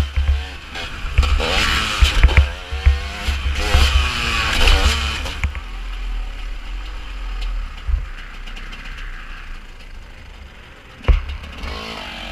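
Two-stroke 250 cc enduro motorcycle engine (TM 250 EN) revving up and down through the gears, with heavy wind buffeting on the helmet camera. About halfway through it drops to a quieter, steadier sound, with one knock near the end.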